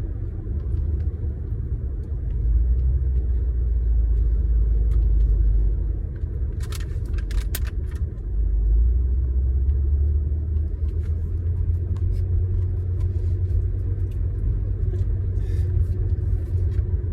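Steady low road rumble inside a moving car, swelling louder twice, with a few sharp clicks about seven seconds in.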